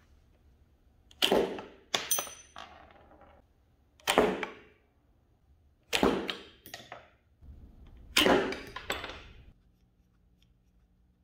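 Homemade wooden slingshot trigger being fired, releasing a stretched latex band: about seven sharp, loud snaps in quick pairs spread over several seconds, one followed by a brief high metallic ring.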